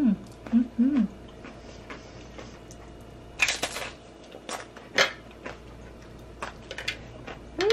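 A person eating a crisp fried-tortilla tostada: short appreciative "mm" hums in the first second, then a crunchy bite about three and a half seconds in and scattered crackles of chewing.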